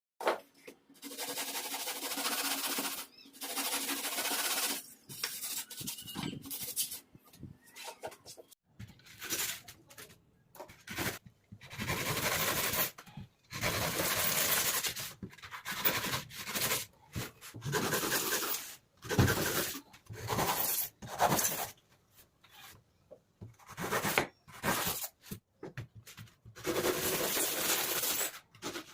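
Scraping and rubbing noises that come in bursts of about half a second to two seconds, separated by short pauses, with a few sharp clicks.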